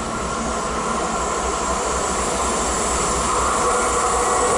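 Voith Maxima diesel locomotive hauling a train of hopper wagons, its engine running with a low pulsing rumble over the noise of the wheels on the rails, growing steadily louder as it approaches.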